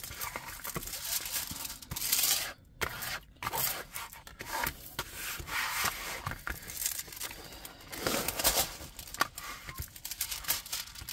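Diamond painting canvas and its plastic packaging being handled, with irregular rustling, rubbing and crinkling and a few small clicks.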